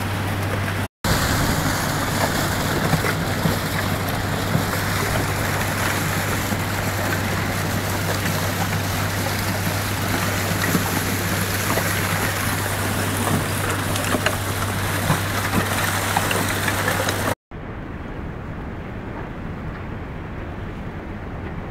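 Broken river ice grinding and crackling against a steel barge hull as it is towed through the ice, over a steady low engine hum. The sound drops out briefly twice, and near the end it becomes quieter and duller.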